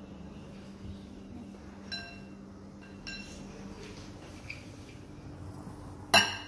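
Kitchenware clinking against glass bowls: a few light, ringing clinks, then one loud clank near the end.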